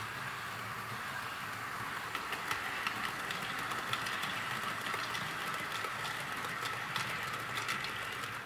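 HO-scale model freight train running past: the TOMIX EF210 electric locomotive's motor gives a steady whine over the running noise, and the tank wagons' wheels click over the track from about two seconds in. The sound fades near the end as the train passes.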